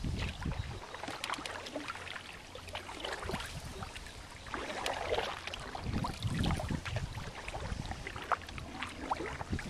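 Wooden paddle strokes dipping and pulling through lake water from a Mad River Reflection Canadian canoe, with water gurgling and lapping along the hull. Wind buffets the microphone with low rumbles now and then.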